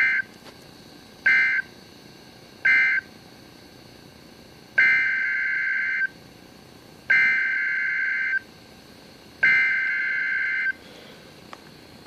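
NOAA Weather Radio EAS/SAME data bursts, the two-tone warble of the digital alert code, heard through the weather radio's speaker. Three short bursts, the end-of-message code that closes the land tornado watch, are followed by three longer bursts, the header of the next alert, the marine tornado watch expansion.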